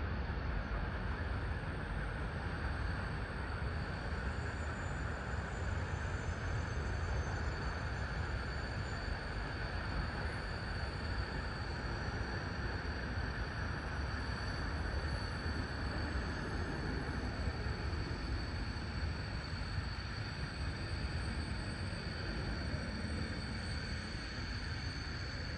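Twin-engine jet airliner climbing overhead at altitude: a steady, distant low engine rumble.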